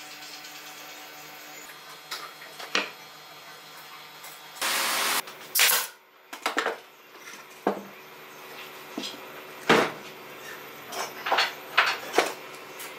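Knocks and clicks of wooden lamp parts being handled on a workbench. About five seconds in comes a short hiss of compressed air from a pneumatic tool on an air hose.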